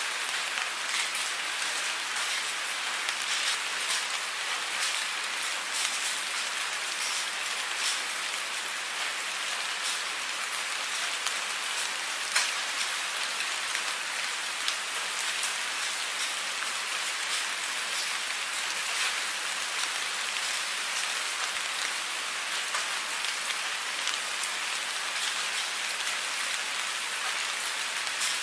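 Steady rain falling, an even hiss with many individual drops ticking on a surface, one sharper drop about twelve seconds in.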